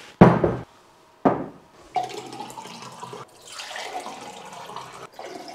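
Water poured from a glass carafe into a drinking glass. Two sharp knocks about a second apart come first and are the loudest sounds.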